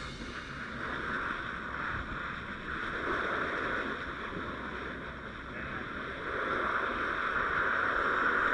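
Steady rushing noise, like road and wind noise from a moving vehicle, swelling a little about three seconds in and again in the last few seconds.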